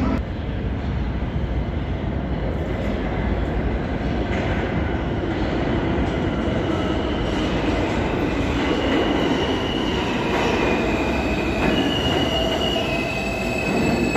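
An R160 subway train approaches through the tunnel and pulls into an underground station with a steady heavy rumble. From about halfway, its wheels begin squealing in several high, steady tones that shift in pitch as it enters the platform.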